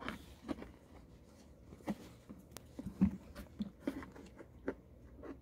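Faint, scattered clicks and taps of a hard plastic bracket being handled and pushed against the plastic base of a Sun Joe SPX3000 electric pressure washer while its tab is worked into a slot.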